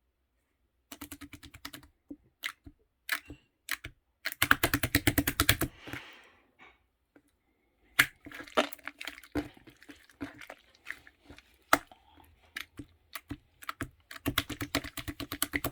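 Handmade slime being squished and poked by hand, making rapid sticky clicks and pops in several quick runs with short pauses between them.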